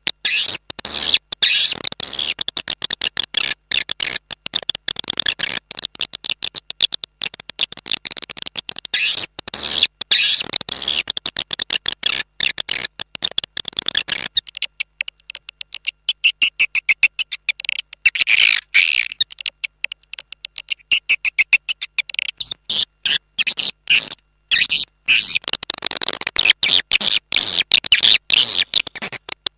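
Swiftlet call recording used as a lure sound for swiftlet nesting houses: a dense, rapid chittering of high-pitched swiftlet chirps, many a second, with the lower part of the sound dropping away for several seconds around the middle.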